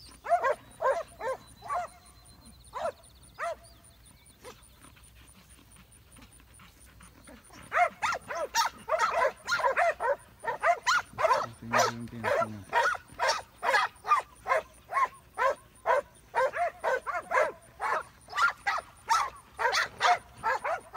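Cattle-dog barking while working a bunch of cattle: a handful of barks in the first three seconds, a pause, then steady barking about two barks a second from about eight seconds in.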